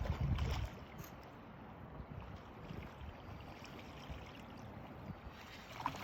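Steady wash of flowing river water, with wind buffeting the microphone in the first moment.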